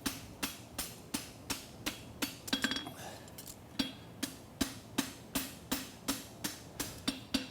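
Farrier's hammer striking a hot steel horseshoe on an anvil, forging a hind shoe from 3/8 by 1 inch bar. Steady blows about two and a half a second, with a short pause a little before the middle and a brief metallic ring on some strikes.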